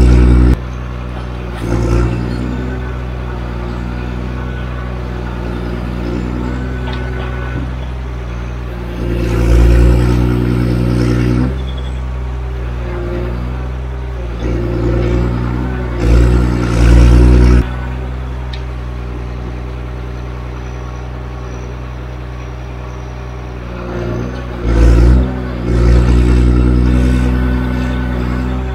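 Heavy diesel engine of a forestry machine running steadily, revving up in several bursts that last one to three seconds.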